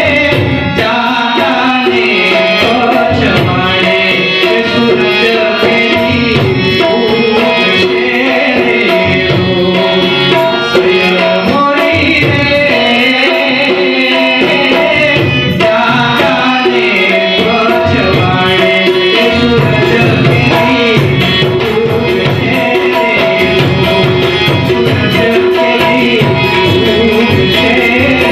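Gujarati folk song performed live: a male voice singing to harmonium accompaniment, with a tabla pair keeping a steady rhythm.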